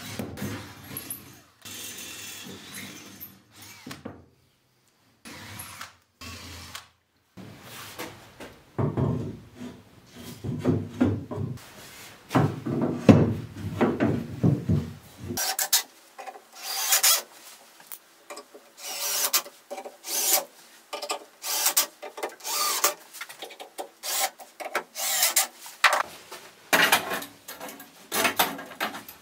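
Wooden chair parts knocking and rubbing as they are handled and fitted onto a metal chair frame. The sounds come in uneven spells, then become many short, sharp knocks in quick succession from about halfway.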